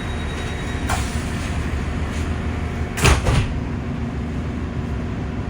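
British Rail Class 165 diesel multiple unit heard from inside the carriage, its underfloor inline-six turbo-diesel running steadily, with a short knock about a second in and a louder double clunk about three seconds in.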